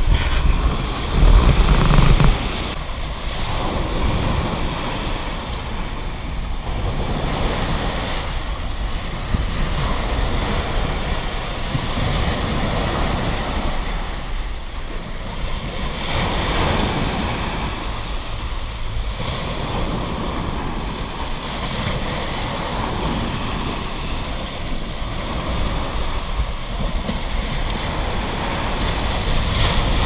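Small sea waves breaking close by on a sandy shore and washing in around rocks, the foamy surge hissing in and draining back in swells every few seconds. A loud low rumble comes about a second in.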